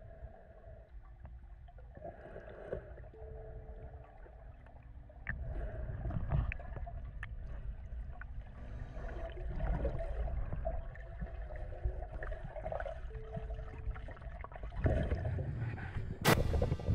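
Muffled water sloshing and gurgling around a camera held underwater by a swimming spearfisher. The swimming noise grows louder about five seconds in, and there is a single sharp click near the end.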